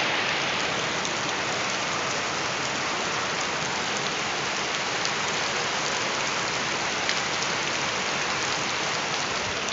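Steady rain falling on a surface, an even dense patter with occasional single drops ticking out.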